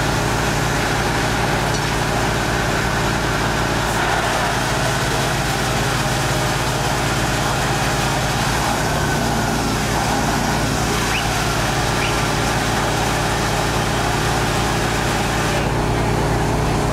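Fire engine's motor running steadily with an even hum, as it does while powering the pump at a fire.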